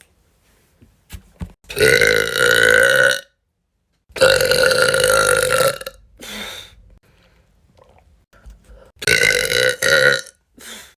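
A young woman burping loudly: a long belch, then a longer one, a short one, and two quick ones in a row near the end.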